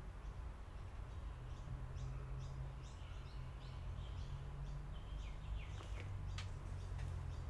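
Small birds chirping in short, quick calls a few times a second over a low steady hum, with a couple of sharp clicks a little after the middle.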